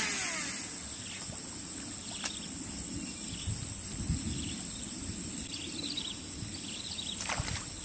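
Steady high-pitched insect drone over a low rumble of handling or wind noise, with a few faint bird chirps and some sharp clicks, the loudest at the start and more about seven seconds in.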